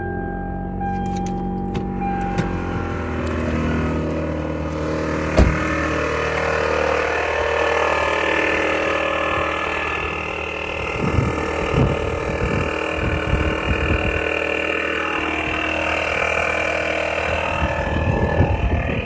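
1993 Toyota Camry engine running just after start-up, with a strange mechanical noise over it that the owners suspect may be the water pump. A steady tone sounds over the first couple of seconds, there is a sharp click about five seconds in, and irregular knocks come in the second half.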